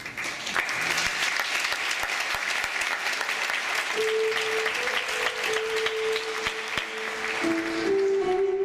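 Audience applauding. About four seconds in, live music starts under the clapping: a melody instrument playing long held notes, with a second held note joining near the end as the applause dies down.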